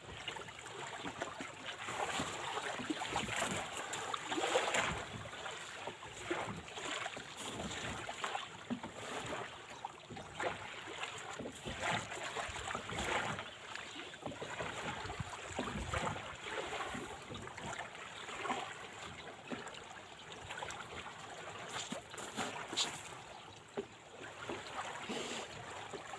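Shallow sea water lapping and splashing close to the microphone in an uneven stream of small sloshes, with some wind on the microphone.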